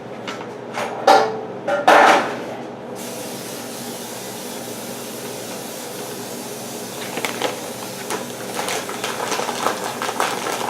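Aerosol cooking spray hissing steadily onto a pan, starting about three seconds in after a few knocks of the pan being handled, with light rattling in the later part.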